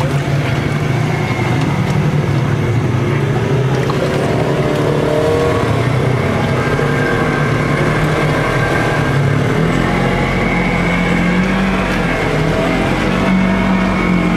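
Side-by-side UTV engine running steadily under load while driving through deep water, its note rising a little about two-thirds of the way through. Water churns and splashes around the vehicle.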